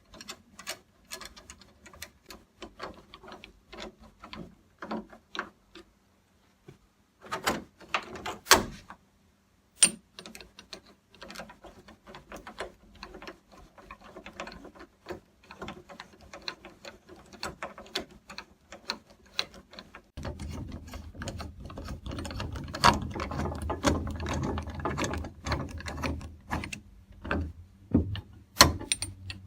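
Screwdriver tightening the machine screws that hold the two halves of a Kwikset door knob together: irregular small clicks and metallic rattles, with a short pause partway through. About two-thirds of the way in, a low steady hum comes in under the clicking.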